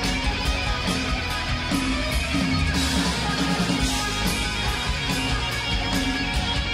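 Live heavy metal band playing, with electric guitar over drums and cymbals keeping a steady beat.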